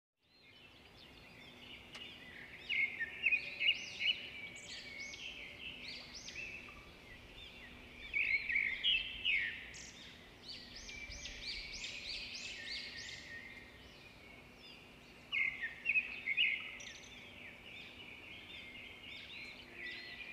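Small birds chirping in quick, high, repeated chirps that come in clusters, loudest about three, nine and sixteen seconds in, over a faint steady hum.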